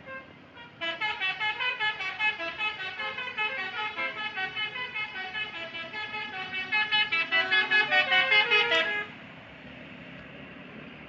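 Telolet horn on a bus: a multi-tone musical horn playing a fast tune of short notes, several a second. It starts about a second in, grows louder past the middle and stops about two seconds before the end.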